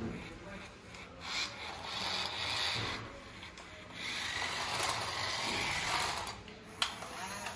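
Remote-control robot toy car's small electric drive motor and gears whirring as it drives over concrete, in two spells of a second or two each, with a sharp click near the end.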